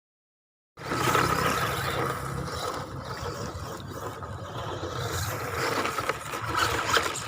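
WLtoys 12423 RC short course truck's 540 electric motor running on a 3S battery, with a steady whine and its tyres scrabbling over the ground. The sound cuts in suddenly about a second in.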